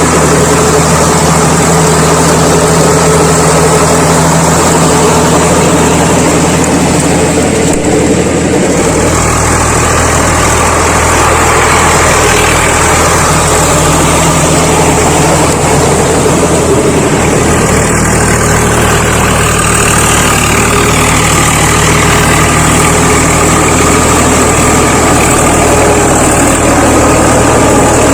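Tractor diesel engine running steadily, its low note shifting about eight seconds in.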